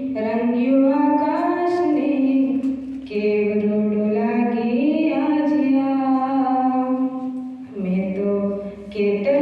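A woman singing solo and unaccompanied into a microphone, amplified over a PA speaker, holding long notes that slide in pitch. There are short breaks for breath between phrases.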